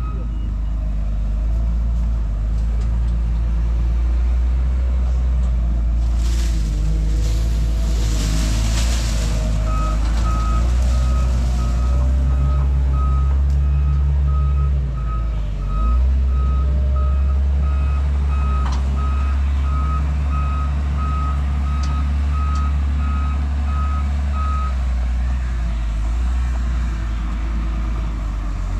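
Diesel engine of a heavy construction vehicle running steadily while its reversing alarm beeps in a regular on-off pattern; the beeping stops at the start, resumes about ten seconds in and stops again about four seconds before the end. A hiss lasting about three seconds comes roughly six seconds in.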